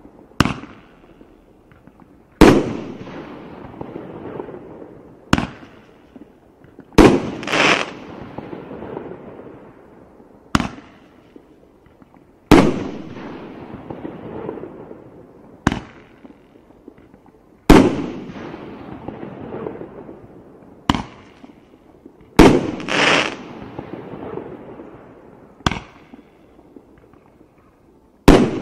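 A 1.2-inch Roman candle firing shot after shot, about one every five seconds. Each shot is a lighter launch pop, followed about two seconds later by a much louder bang as it bursts overhead, with an echo trailing off for a second or two. About six shots are heard.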